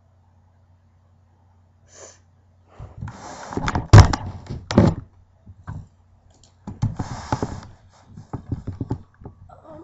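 Handling noise from a webcam being picked up and moved: rustling and bumps against its microphone, with the loudest thump about four seconds in and a quick run of light knocks near the end.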